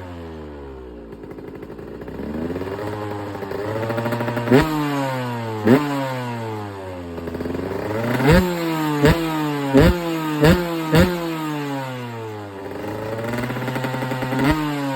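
KTM EXC 125's single-cylinder two-stroke engine revved, the revs swelling and sinking slowly, then about seven sharp throttle blips in quick succession, each dropping back fast.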